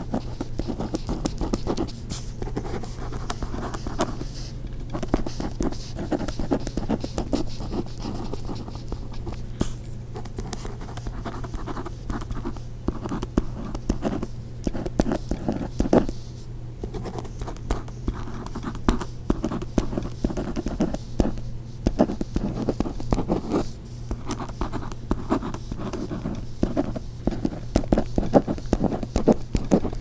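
Ballpoint pen writing on lined paper: an uneven, continuous run of short scratching strokes of the tip across the page, with a steady low hum underneath.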